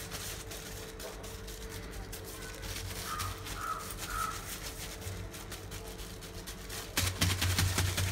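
Plastic bag crinkling and rustling as a gloved hand pats and presses a warm peanut-and-jaggery chikki slab. Electronic music with a heavy beat comes back about 7 seconds in.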